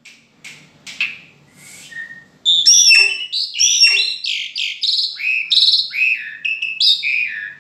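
A caged jalak (starling) singing: a few soft calls at first, then from about two and a half seconds in a loud, unbroken run of varied whistles and chirps, many notes sliding down in pitch.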